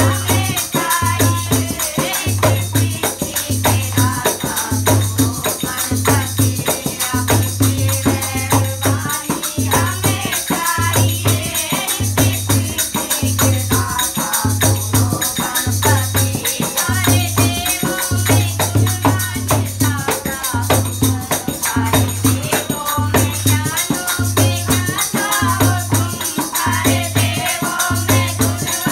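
Group of women singing a Ganesh bhajan in unison to a dholak drum beating about once a second, with hand clapping and a rattling percussion over it.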